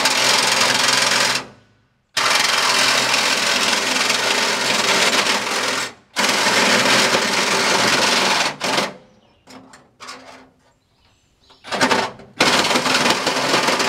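Cordless sheet-metal cutting tool running and cutting through steel building siding, in several runs of one to four seconds with short stops, and only brief blips about ten seconds in.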